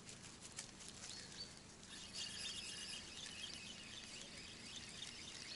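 Faint birds chirping and twittering, busier from about two seconds in, over a quiet outdoor background, with a few soft clicks near the start.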